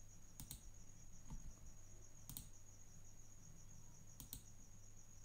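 Computer mouse clicks, three quiet double clicks spread about two seconds apart over a faint steady high-pitched pulsing tone and a low hum.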